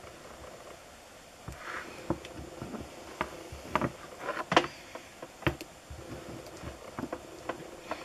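Handling noise: scattered light knocks and clicks as a wooden disc and a pyrography pen are moved about on a wooden table, the loudest about four and a half seconds in.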